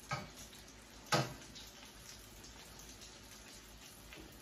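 Rolled potato tacos frying in hot oil in a pan: a steady, faint sizzle and crackle, with two sharp knocks from the tongs, the louder one about a second in.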